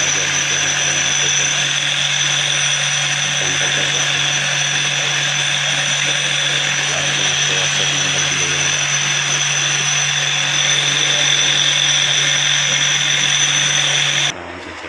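Mahindra Treo Plus 8 kW electric drive motor test-running after its bearings and reduction gear were reworked, a steady whine with several high tones over a low hum. It cuts off suddenly near the end. The mechanic calls it an excellent sound, with none of the earlier noise.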